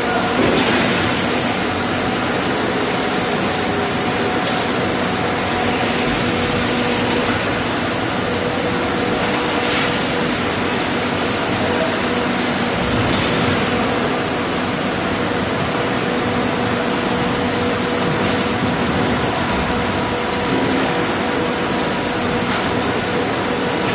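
Steady din of a meat-processing plant's machinery and ventilation: an even hiss-like noise with a few faint steady hums and occasional faint knocks.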